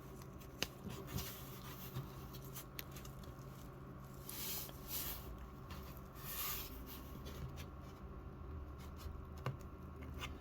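Faint clicks, ticks and rubbing of a plastic action figure being handled, as its axe is worked into tight fingers and its stiff joints are moved. A few soft hissing rushes come midway.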